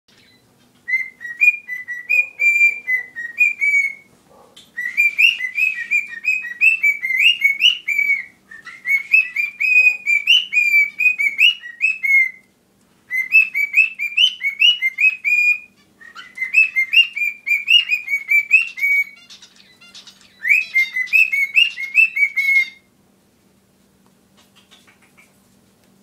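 Pet cockatiel whistling its song: six phrases of quick, rising, chirpy notes, each two to three seconds long with short breaks between, then only faint chirps near the end.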